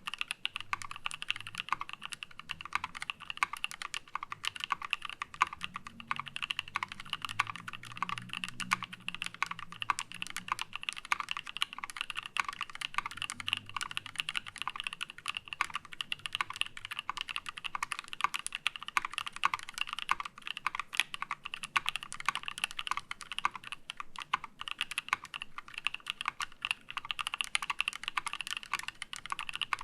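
Continuous fast typing on a KEY65 mechanical keyboard with a titanium plate and NK Cream linear switches lubed with GHv4, giving a steady stream of quick keystroke clacks.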